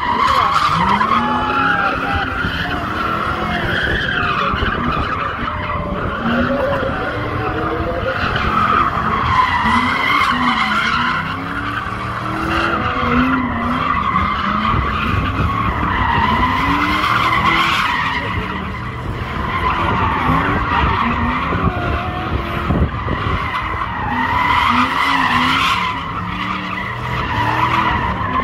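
Car drifting: tyres squealing continuously while the engine revs climb and drop over and over, a fresh rise every second or two.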